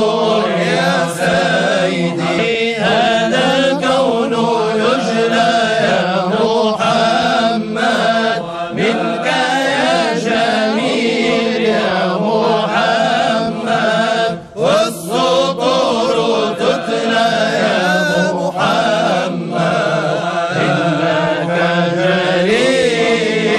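Sufi devotional chanting in praise of the Prophet Muhammad: voices chanting a melodic salawat line with a steady low drone beneath. There is a short break about fourteen seconds in.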